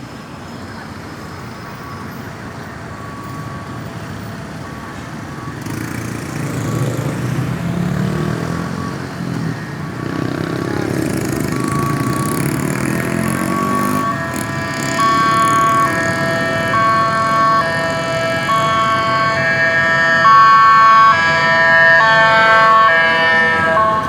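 Ambulance siren sounding in stepped tones that change pitch about twice a second. It is faint at first and gets much louder over the last ten seconds, over road traffic noise.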